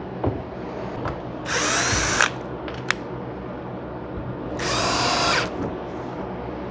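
A power drill runs in two short bursts of under a second each, about three seconds apart, its motor pitch shifting as it loads. A few light knocks fall between the bursts.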